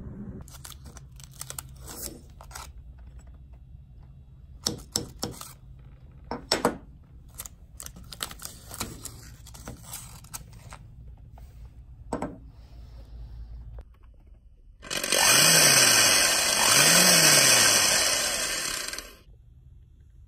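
Scattered clicks, taps and rustles of materials being handled, then a power tool runs loudly for about four seconds, its pitch rising and falling twice as it works.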